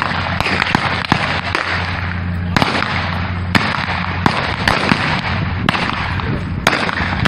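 Blank gunfire from a staged Western gunfight: a string of sharp shots at irregular intervals, some close together and some a second or more apart, over a steady rushing background noise.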